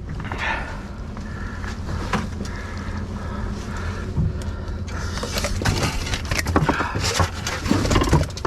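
Knocks, slaps and rattles as a large striped bass thrashes on deck while a hook is worked out of it with pliers, the knocks coming thicker in the second half. Under them a boat engine idles in neutral with a steady low hum.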